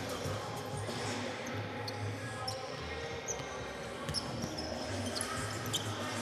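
Basketballs bouncing on a hardwood gym floor as players dribble, with a few short high squeaks.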